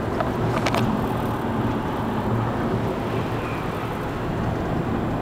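Steady road and wind noise inside a moving car's cabin, a continuous low rumble, with a brief click under a second in.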